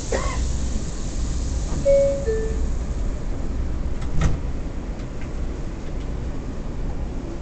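R179 subway car's two-tone door chime, one short note stepping down to a lower one, over the steady rumble of the stopped train; a thump follows about two seconds later.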